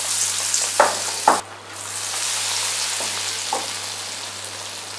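Batter-coated potato slices (aloo pakora) sizzling as they deep-fry in hot oil in a steel kadai, with two sharp pops about a second in. The sizzle drops away briefly, then comes back steady.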